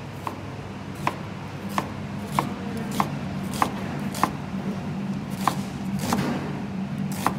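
Chef's knife slicing an onion on a plastic chopping board: a steady run of knife strokes knocking on the board, a little under two a second, over a low steady hum.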